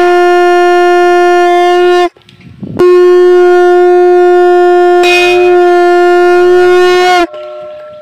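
Conch shell (shankha) blown in two long, steady blasts on one note. The first breaks off about two seconds in, and the second starts just before three seconds, grows brighter midway and stops near the end, with a slight dip in pitch as each blast ends.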